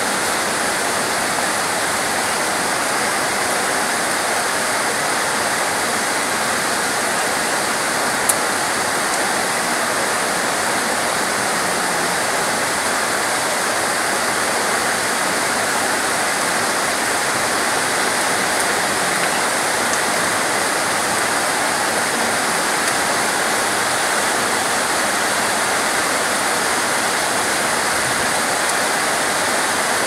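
Heavy rain pouring down on palm trees, a dense, even hiss of falling water that holds steady throughout. A single brief click about eight seconds in.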